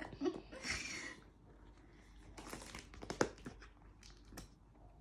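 Apple Watch SE box packaging being handled and opened: bursts of paper and plastic crinkling and rustling, with a few sharp clicks.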